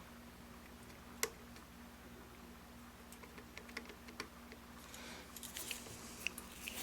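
Faint small clicks and taps of a soldering iron and solder being worked on a circuit board trace, with one sharp click about a second in and a cluster of light ticks and a brief hiss near the end, over a steady low electrical hum.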